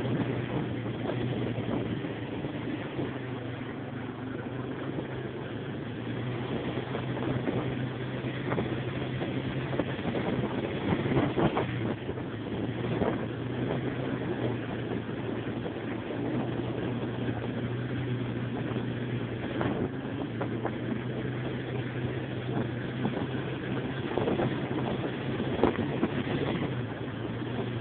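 Yamaha Warrior ATV's single-cylinder four-stroke engine running steadily under way on a dirt trail, with a few sharp knocks along the way.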